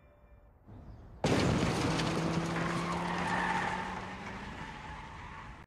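A car skidding with its tyres squealing and its engine running. It starts suddenly about a second in and fades away gradually.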